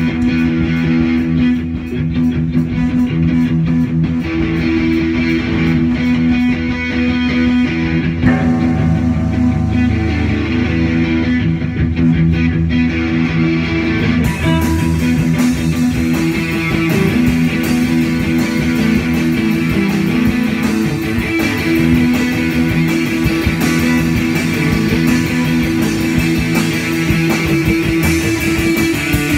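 Live rock jam: electric guitars played loud over a drum kit, with sustained guitar notes and steady drum hits. About halfway through the sound gets brighter and fuller as the top end fills in.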